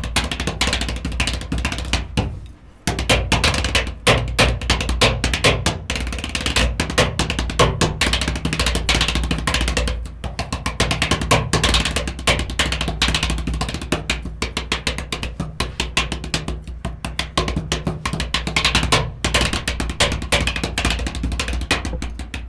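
Marching-style snare drum solo played with sticks on a snare drum with a practice pad laid on its head: fast, dense strokes and rolls, with a brief break about two and a half seconds in.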